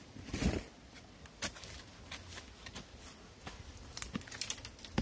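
A wooden pole jabbed into earth and roots while digging for bamboo shoots, giving irregular knocks and sharp clicks, with quicker clusters of strikes about half a second in and near the end.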